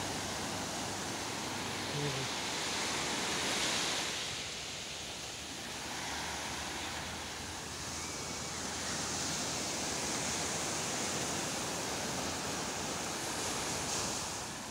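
Small sea waves breaking and washing up a sandy beach: a steady surf hiss that swells a few times as waves come in and draw back.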